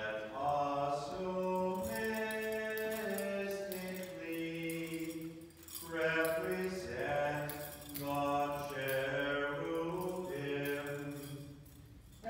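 Byzantine liturgical chant, sung on long, held notes in a slow line, with short breaks between phrases about halfway through and near the end.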